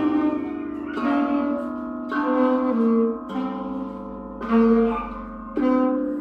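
Improvised instrumental music: layered pitched notes, with a new note or chord struck or plucked roughly every second and each one ringing on.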